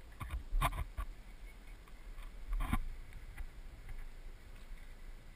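Wind buffeting the microphone in a low, steady rumble, with two short louder sounds about half a second and two and a half seconds in.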